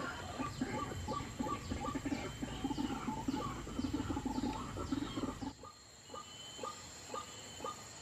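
Repeated, rhythmic clucking bird calls of rice-field birds, busy at first and then, about five and a half seconds in, quieter and thinning to a series of short notes about two or three a second.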